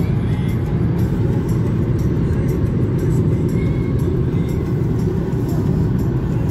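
Steady road and engine rumble heard from inside a moving car at highway speed, with music playing in the car.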